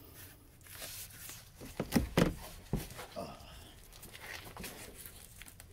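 Rustling as an oily gloved hand is wiped clean with a rag, with a few sharp knocks about two seconds in.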